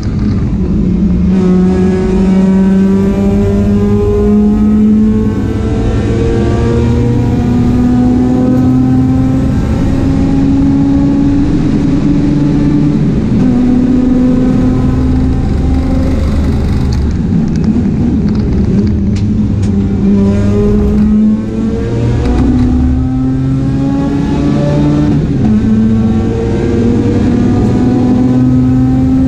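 Mazda RX-8 race car's engine under hard acceleration, its pitch climbing through each gear and dropping back at every upshift, with a stretch of lower, unsteady revs off the throttle about two-thirds of the way through before it pulls up through the gears again.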